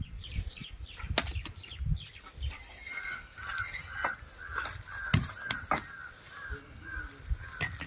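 Birds calling, a short chirp repeating about three times a second from about three seconds in, with a few sharp knocks and low wind rumble on the microphone.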